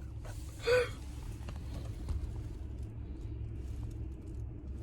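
Steady low rumble of a car heard from inside the cabin, with a brief vocal sound just under a second in.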